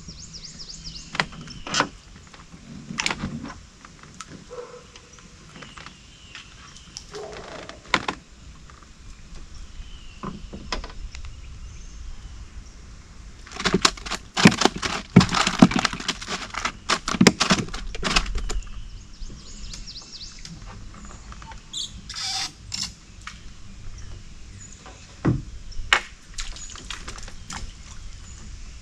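Scattered knocks and thunks from fishing gear being handled in a small boat, with a dense run of rattling clicks about halfway through.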